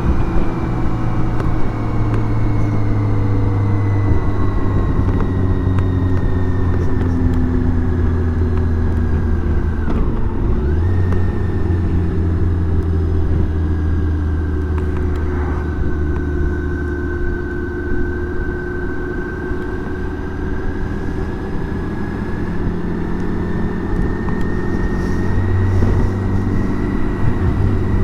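BMW K1600 GTL's inline-six engine running under way, recorded from the moving bike with road and wind noise. Its pitch eases down, dips sharply and recovers about ten seconds in, then holds fairly steady.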